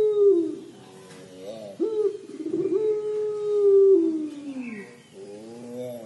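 Barbary dove (puter pelung) giving its long, drawn-out 'crying' (menangis) coo: a long coo begins about two seconds in, holds a steady pitch, then slides down in pitch and fades near five seconds. The tail of a previous coo falls away at the start, and the next coo rises in at the end.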